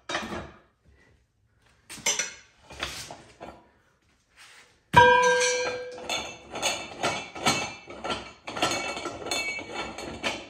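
Metal-on-metal clinks from a wrench and the steel tire-changer stand. About five seconds in comes one loud ringing clang, then a run of quick clicks and clanks as the wrench works.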